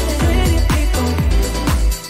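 Upbeat electronic pop background music with a steady kick-drum beat about twice a second and a bass line.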